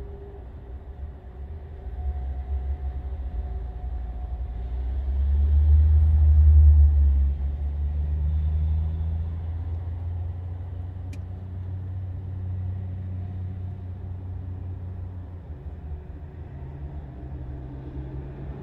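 Cars and vans driving slowly past, their engines a low rumble that swells to its loudest about six seconds in as one passes close, then eases off.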